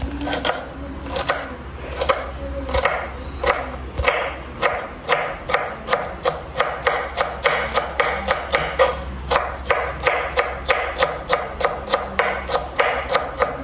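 A kitchen knife finely chopping celery on a wooden cutting board: a steady run of quick knocks, about three a second.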